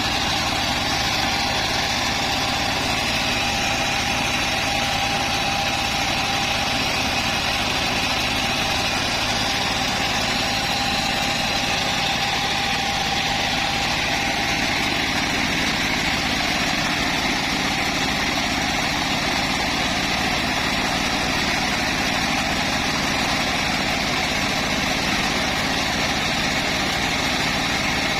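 Homemade bandsaw mill running steadily, its engine and blade giving an even, unchanging drone.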